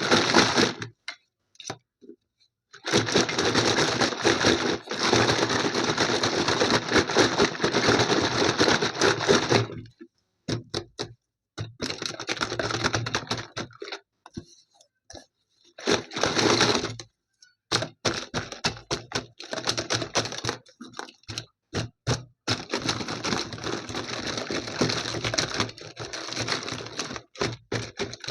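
Packaging being opened by hand: long stretches of rustling and tearing, with runs of sharp clicks and cracks between them.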